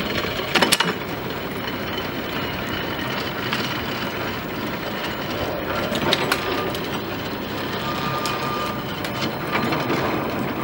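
Ore buckets of an 1897 mine aerial ropeway travelling along the cables, with a continuous rolling noise. Sharp clattering clicks come about half a second in, around six seconds and again near the end as bucket carriages roll over the trestle tower.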